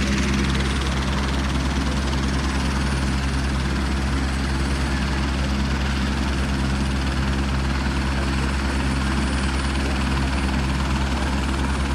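Helicopter running steadily, its rotor and engine making an unchanging low drone.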